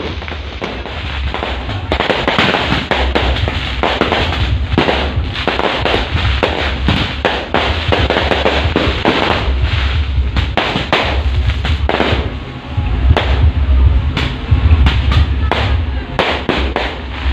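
Firecrackers and fireworks going off in a dense run of sharp bangs and crackles, over loud bass-heavy music from a big truck-mounted 'horeg' sound system.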